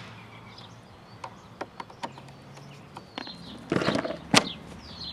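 A few light clicks, then the fabric SW-MOTECH tank bag is set on the motorcycle's tank with a short rustle and snaps onto its quick-lock tank ring with one sharp, loud click.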